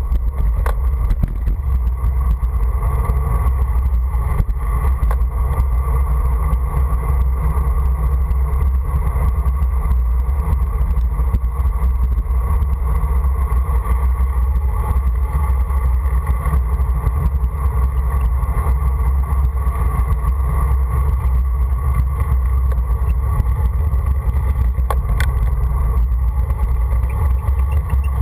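Steady wind rumble on the microphone of a bike-mounted camera during a fast road-bike descent, with tyre and road noise underneath.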